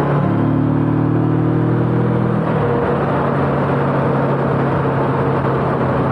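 Motorcycle engine running at road speed under a rush of wind, the engine note dropping to a lower steady pitch about two and a half seconds in.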